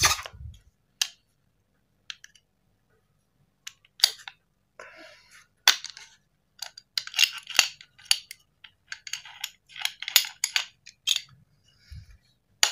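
Metal parts of a field-stripped KJ Works KP02 (Sig Sauer P229) gas airsoft pistol clicking and scraping as they are handled: the recoil spring and guide rod set down and the barrel with its hop-up unit worked out of the slide. A few scattered clicks at first, then a dense, irregular run of clicks and scrapes from about four seconds in until near the end.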